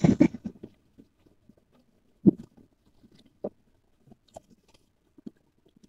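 A few irregular knocks and taps with quiet between: a short cluster at the start, the loudest knock a little over two seconds in, another about a second later, then faint ticks.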